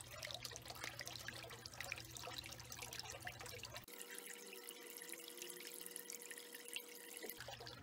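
Faint trickling and dripping of water in a shallow garden pond, with a low hum that cuts out about four seconds in.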